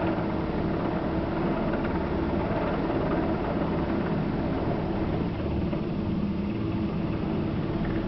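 Large six-bladed heavy-lift helicopter hovering directly overhead while lifting a load on a cable, its rotor and turbine engines giving a loud, steady drone with a constant hum.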